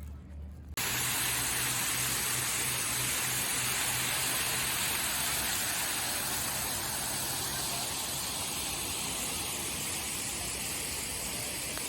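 Steady rush of falling or flowing water, starting abruptly about a second in.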